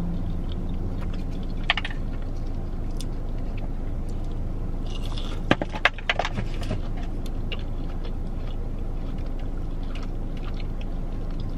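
Close-up chewing and biting of a fried chicken finger, with a few sharp mouth clicks and crunches, loudest about six seconds in, over a steady low hum.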